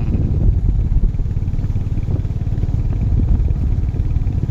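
Royal Enfield 350's single-cylinder engine running steadily while the motorcycle is ridden, with a dense, even low exhaust beat.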